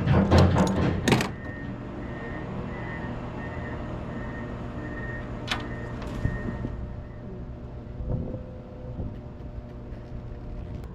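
A diesel engine idling with a steady low hum. It opens with a quick burst of clattering knocks. A high electronic beep repeats about twice a second for about five seconds, and there is one sharp click partway through.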